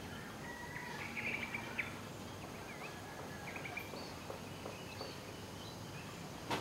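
Birds chirping in short, quick calls over a steady outdoor background hiss. The calls are busiest about a second in. A single sharp click comes near the end.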